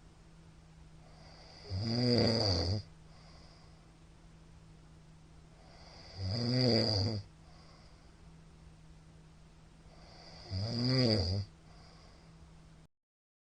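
A middle-aged man snoring loudly while asleep: three snores, each about a second long, coming about every four and a half seconds with quieter breathing and a faint steady hum between them. The sound drops out to silence for a moment near the end.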